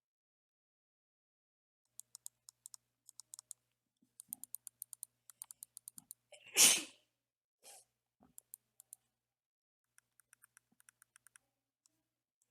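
Razer Basilisk V3 gaming mouse buttons clicking in quick runs of sharp clicks, about five a second. Just past halfway there is a loud noisy burst about half a second long, the loudest sound here.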